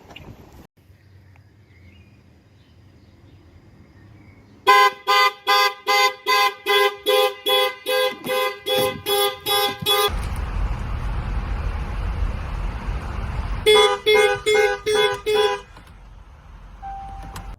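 Jaguar Land Rover car horn sounding its panic alarm: rapid repeated honks, about two and a half a second, for around five seconds. A few seconds of low rumbling noise follow, then a shorter burst of about six more honks.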